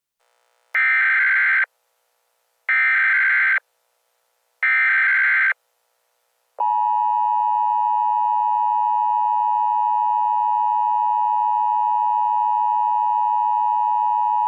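Emergency Alert System SAME header: three one-second bursts of buzzing digital data tones about a second apart. Then comes the EAS attention signal, a steady two-tone alarm held for about eight seconds before it cuts off. Together they mark the start of a new emergency alert message.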